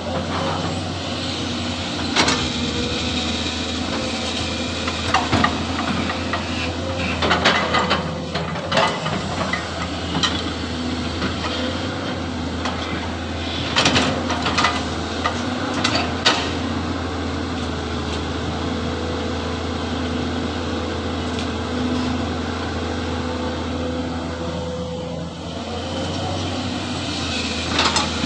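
SANY hydraulic excavator's diesel engine running steadily, with a faint steady whine above the drone, while it works soil: several sharp clanks and knocks, a few in quick clusters.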